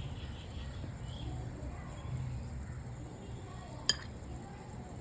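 A spoon stirring dry herbal powders in a bowl, with faint scraping and one sharp clink against the bowl about four seconds in, over a steady low hum.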